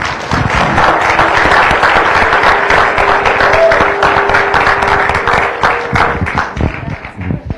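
Audience applauding, many hands clapping together, thinning out near the end.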